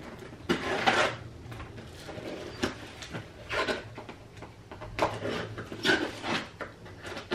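Cardboard box being handled and opened by hand, with irregular scraping and rustling of the card and a few sharper rubs and snips as the flap is cut and pulled open.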